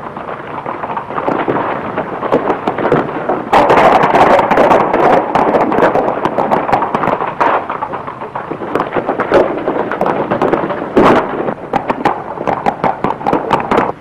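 Hoofbeats of several horses galloping off together at the start of a race, a dense rapid clatter that swells about three and a half seconds in, on an old, hissy film soundtrack.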